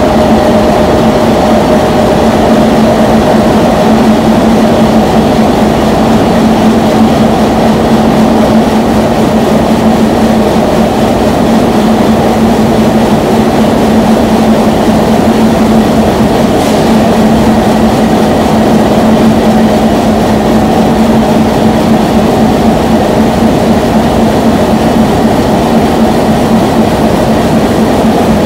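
GE GEU-20 diesel-electric locomotive running steadily as it creeps past, a constant engine drone with a steady low hum and no change in pitch.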